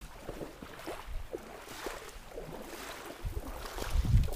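Shallow meltwater lying on river ice sloshing and splashing irregularly under boots as someone walks through it, with low wind rumble on the microphone in the second half.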